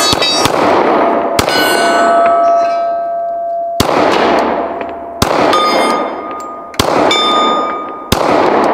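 Glock 23 .40 S&W pistol firing about seven loud shots, two in quick succession at the start, then one every second and a half or so. Several shots are followed by the ringing of hit steel targets, which fades over a second or two.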